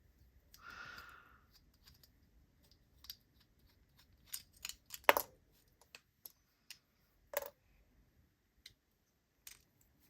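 Scattered light clicks and clacks of small hard parts being handled as a bearing is fitted into a fidget spinner, with a brief scrape near the start. The sharpest click comes about five seconds in.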